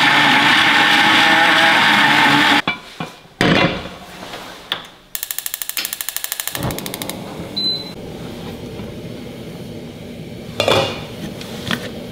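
Countertop blender grinding shallots and garlic into a spice paste, running steadily for about two and a half seconds and then cutting off. A few seconds later a gas hob's igniter clicks rapidly for about two seconds as its knob is turned.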